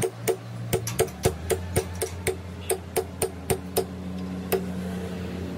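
Small hammer tapping metal on a brass bush held in a steel sleeve against an iron block: a quick run of about four light blows a second, each with a short metallic ring, ending in a single last tap about four and a half seconds in.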